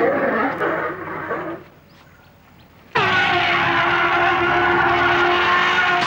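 African elephant trumpeting: one loud, brassy blast that starts suddenly about three seconds in with a brief drop in pitch, holds steady for about three seconds, then cuts off. Before it, another sound fades out within the first second and a half, leaving a short quiet gap.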